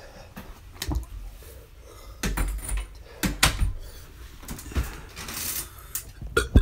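Scattered knocks, light thumps and clicks with some rustling, from a person moving about and handling things close to the microphone.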